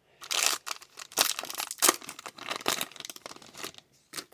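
Crinkling and tearing of a foil trading card pack wrapper being handled and opened, in a run of crackling bursts.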